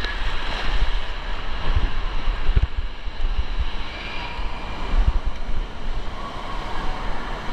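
Rushing water with wind buffeting the microphone during a water-slide ride, steady and loud, with a few low thumps.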